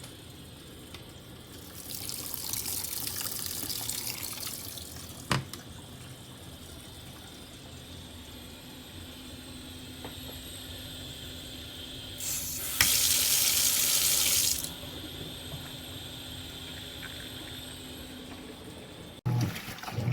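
Water running into a sink in two loud gushes of a couple of seconds each, over a steady low hum that sets in partway through, with a single sharp click about five seconds in.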